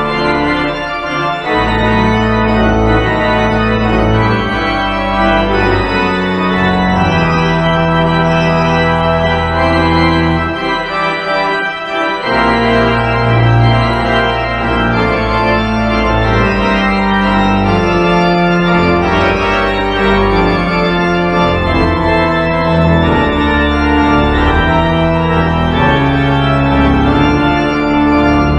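Organ playing a closing voluntary: slow, held chords that move from note to note over deep pedal bass notes. The bass drops out for about two seconds near the middle, then comes back in.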